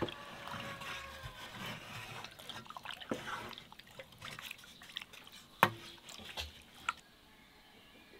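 Wooden spoon stirring soft, fresh sheep's-milk cheese curds in whey in a metal pot: wet sloshing and squelching, with a few sharp knocks, the loudest about five and a half seconds in. It goes quieter near the end.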